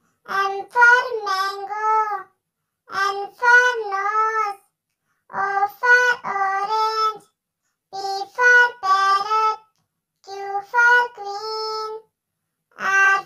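A child's voice chanting the alphabet in a sing-song tone, one letter-and-word pair at a time, from "M for mango" to "Q for queen". There are five short phrases with brief pauses between them and no backing music.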